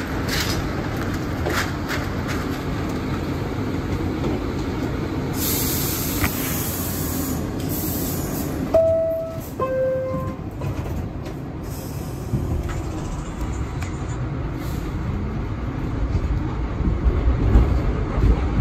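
Inside an R62A subway car: a burst of hiss, then the two-note descending door chime, high then low, about nine seconds in. After it the train pulls out, with a rising motor whine and a low rumble that grows louder toward the end.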